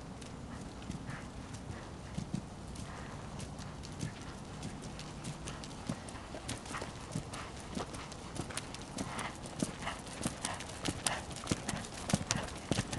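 Hoofbeats of a Saddlebred gelding moving at a lively gait under a rider on arena dirt, a quick run of sharp clicks that grows louder as the horse comes nearer.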